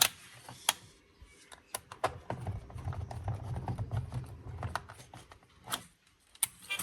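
Clicks, taps and rattles of hard plastic toy car parts being handled, with a low rumbling stretch in the middle.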